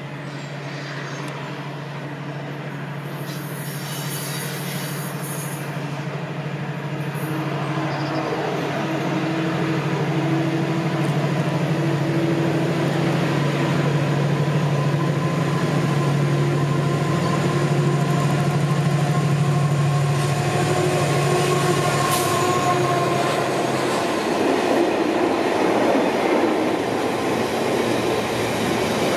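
Freightliner Class 70 diesel locomotive with its 16-cylinder GE PowerHaul engine approaching at the head of a container freight train, its steady engine drone growing louder until it passes some 24 seconds in. The container wagons then roll by with a continuous rumble of wheels on rail.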